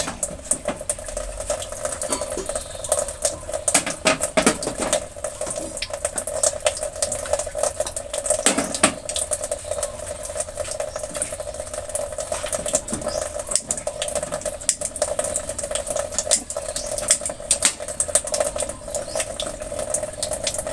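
Lidded pot boiling on a lit LPG gas range: constant irregular bubbling and crackling over a steady hum.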